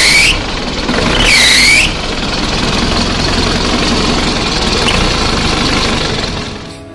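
Isuzu Panther diesel engine revved, giving two short, loud squeals whose pitch dips and rises again, then running on steadily before fading near the end. The owner's complaint is that it squeals like this when revved.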